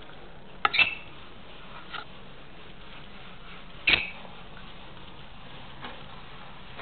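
Caged lovebirds giving short, sharp chirps: a loud double chirp less than a second in, a softer one about two seconds in, another loud one about four seconds in and a faint one near the end.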